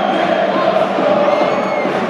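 Large football crowd in the stands singing and chanting together, with a high whistle held briefly a little over a second in.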